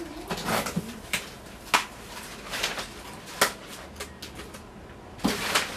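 Packaging being handled as a large gift box is unpacked: irregular crinkling and rustling bursts with several sharp snaps and clicks.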